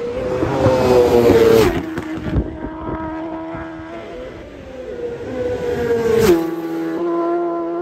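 Two TT racing superbikes pass flat out, one just under two seconds in and another about six seconds in. Each engine note drops sharply in pitch as the bike goes by, then holds lower as it pulls away.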